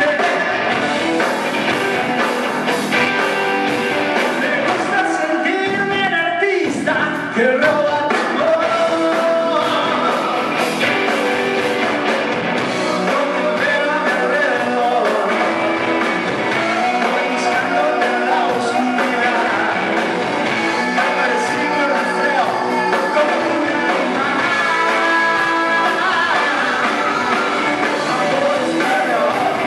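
A rock band playing live, with electric guitars and drums.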